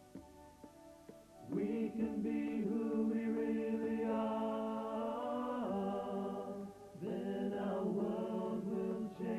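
Small vocal group of men's and women's voices singing held chords in close harmony, with no instruments standing out. It is quiet for the first second and a half before the voices come in, and there are short breaks between phrases.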